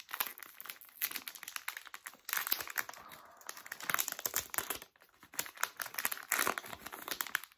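Packaging of a set of nylon classical guitar strings crinkling and rustling as it is pulled open by hand, in irregular crackles with brief pauses about two and five seconds in.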